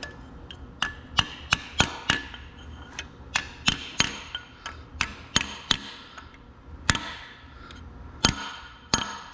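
Hammer blows on metal, about two a second with a short pause near the end, each strike ringing briefly: a part being driven into the housing of a Clark four-wheel-drive tractor axle.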